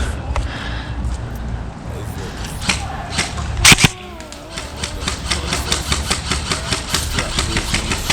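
A loud, sharp snap a little before halfway, then a run of quick, even clicks of about four a second over a steady low rumble, typical of handling noise from airsoft gear.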